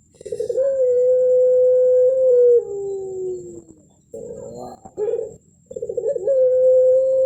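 Puter pelung dove cooing twice. Each call opens with a few quick notes, holds one long, level note for about two seconds, then drops to a lower, falling ending; the second call starts about four seconds in and is still on its long note at the end. This is the drawn-out 'melung' voice with a thick ending that the bird is bred and judged for.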